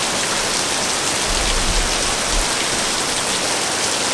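Steady rush of falling and cascading water from a rainforest creek's waterfalls, running high after heavy rain.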